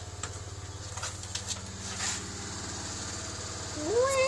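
Faint clicks of a door knob and door being opened over a steady low hum. Near the end a cat meows, one rising call that then holds.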